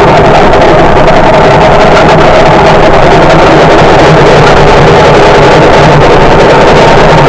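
Zanussi washing machine drum spinning with a loud, steady roar from worn, damaged drum bearings.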